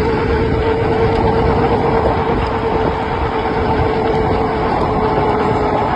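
A Tuttio ICT e-bike being ridden: wind rushing over the microphone, with a steady whine from its replacement motor under power.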